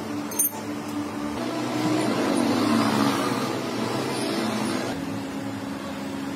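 Steady low machine hum, with a sharp click about half a second in and louder scraping and handling noise in the middle as plastic car tail-light lens pieces are worked by hand.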